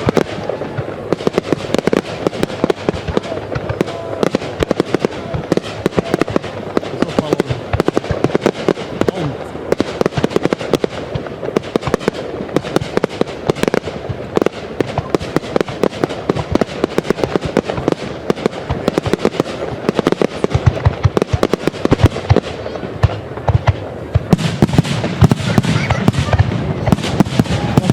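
Fireworks display: a continuous rapid volley of bangs and crackling bursts, growing heavier and deeper near the end.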